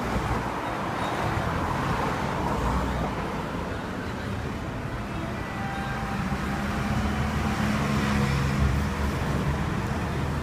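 Urban road traffic: cars running and passing, a steady rumble with a low engine hum that grows stronger in the second half.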